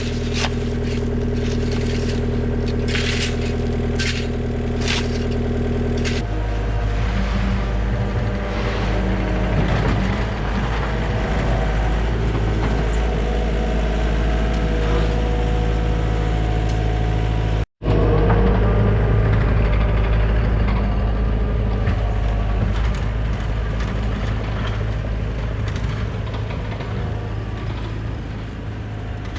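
Heavy diesel machinery running steadily, its engine note shifting about six seconds in, with sharp clanks and scraping during the first few seconds.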